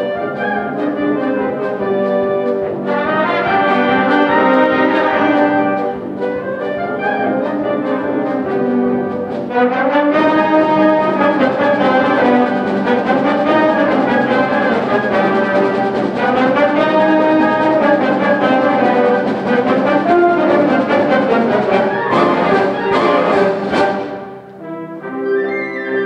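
High school symphonic band playing: sustained brass and woodwind chords that swell fuller and louder about ten seconds in, with a brief drop near the end before softer playing resumes.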